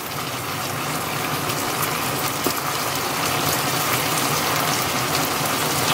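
Velveted chicken cooking in a pan of sauce, giving a steady sizzling hiss.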